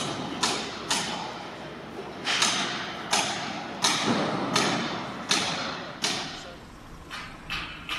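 A series of heavy thuds, roughly one every 0.7 s, each dying away in an echo; near the end they come lighter and quicker.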